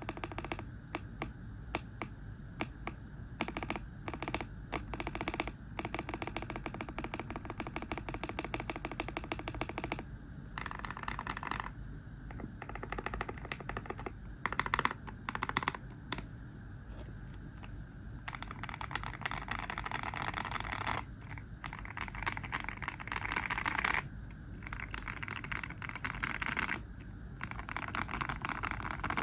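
Typing on a GMK67 mechanical keyboard with linear Akko Cream Yellow switches, tape-modded and foam-dampened: a steady run of keystroke clacks, with several stretches of faster, denser typing later on.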